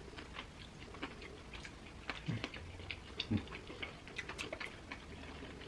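Close-miked chewing of a burger: irregular wet mouth clicks and smacks, with a couple of brief low sounds from the throat around the middle.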